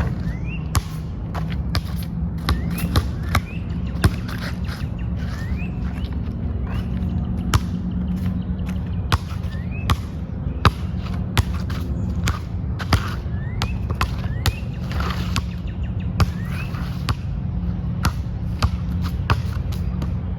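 A basketball bouncing and being shot: sharp, irregular impacts, each a single hard hit, over a steady low background rumble.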